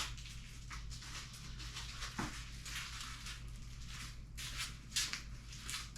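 Scattered rustling and scraping handling noises, several short bursts, over a steady low hum.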